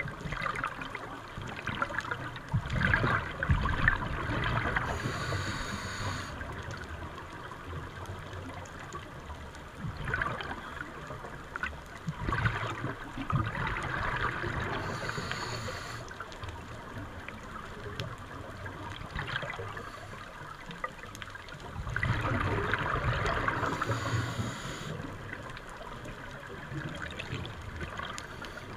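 Scuba diver breathing through a regulator, heard underwater: three rounds of exhaled bubbles rumbling and gurgling, each ending with a short hiss of the next breath.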